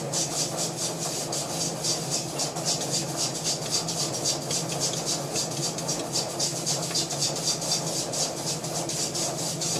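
Jewelry laser welder firing a rapid, regular train of pulses on a ring, each pulse a short sharp tick, several a second, over a steady low hum.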